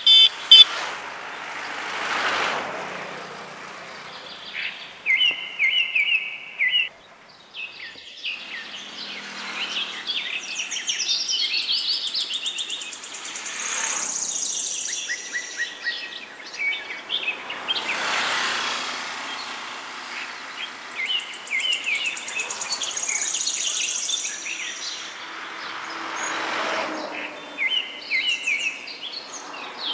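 Several small birds chirping and singing in short repeated phrases, with now and then a high trill, over a rushing outdoor noise that swells and fades every several seconds.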